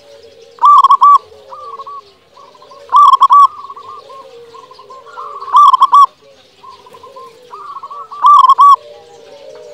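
Zebra dove singing: four loud, short phrases of rapid ringing coos about every two and a half seconds, with softer coos between them and lower cooing underneath.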